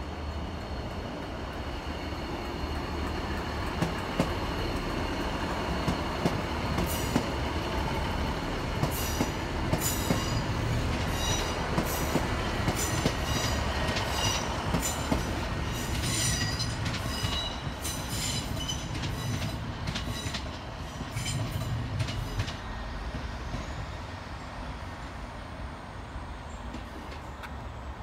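A multiple-unit passenger train running over curved pointwork under a steady low rumble, its wheels squealing on and off in high ringing tones and clicking over the rail joints. The squeal and clicking die away a little past twenty seconds in.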